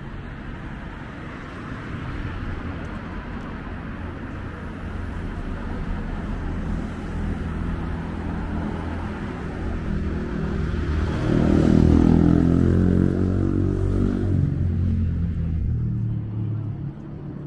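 A motor vehicle's engine running close by on the street, growing louder and loudest about twelve seconds in as it passes, then falling away sharply near the end.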